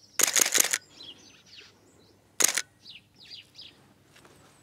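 Nikon F5 film SLR's shutter and motor drive firing in continuous high-speed mode: a rapid half-second burst of frames near the start, then a shorter burst about two and a half seconds in. Small birds chirp faintly in between.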